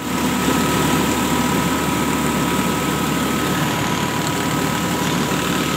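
A tractor-driven mini rice mill running. The belt-driven hulling and polishing machine whirs steadily with a constant high whine over the low, even running of the Powertrac Euro 50 tractor's diesel engine.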